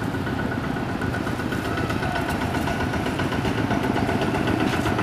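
An engine idling steadily, with a constant low rumble.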